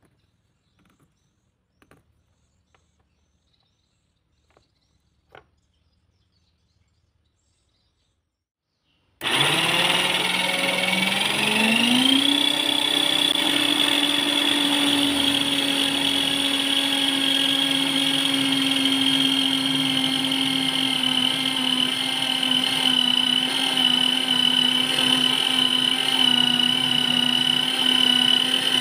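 A few faint taps over near silence, then about nine seconds in a bench machine's spinning disc starts abruptly and cuts into a grey plastic plate. Its whine rises in pitch over a couple of seconds, then holds steady and loud.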